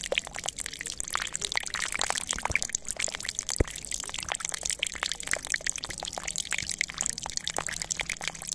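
A thin stream of water pouring from a small plastic tube into a shallow plastic tray, trickling and splashing steadily as the tray fills.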